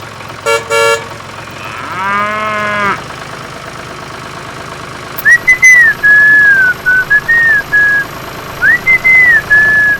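A cow moos once for about a second over a steady low engine hum. From about five seconds in, a loud whistled tune of sliding notes takes over.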